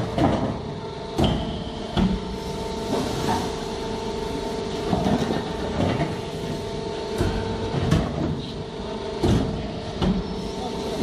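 Metal roofing-tile roll-forming machine running with a steady hum, with repeated metallic clunks and thuds about once a second as it forms the stepped glazed-tile sheet.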